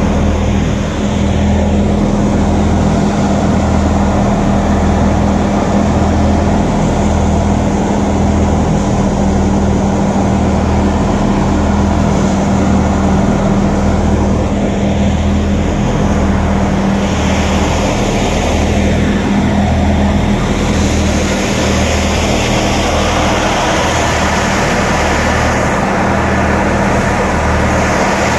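Ghazi tractor running a Diamond wheat thresher: a loud, steady machine hum with a low throb pulsing about once a second.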